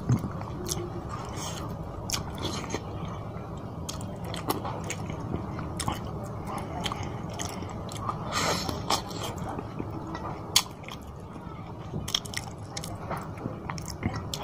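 A man chewing mouthfuls of fish curry and rice eaten by hand, with scattered short sharp mouth clicks and a louder spell about eight seconds in as he takes another handful into his mouth.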